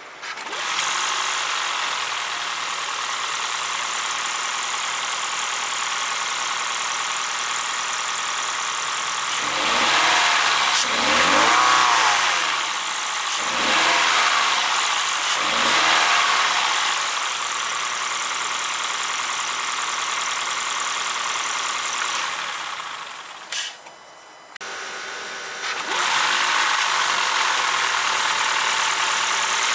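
A car on the move: steady road and engine noise. In the middle it grows louder, with pitches rising and falling, and it drops away briefly near the end before the steady noise returns.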